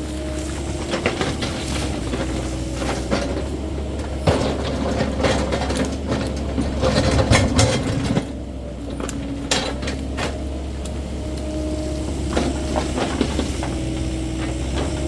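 Caterpillar 308E2 mini excavator working: a steady diesel engine hum with a hydraulic whine that shifts in pitch as it works, and irregular clanks and knocks from the machine, busiest and loudest a little after halfway.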